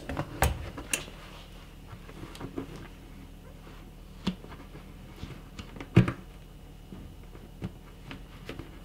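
A plastic keg and its plastic spigot being handled while the spigot is screwed into place: a few scattered light knocks and clicks, the loudest about six seconds in.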